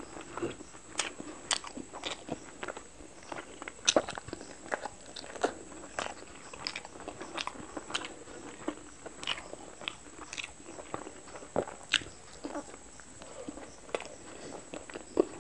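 Close-miked chewing and mouth sounds of a person eating steamed chicken momos dipped in chutney, with many irregular sharp clicks and smacks, several a second.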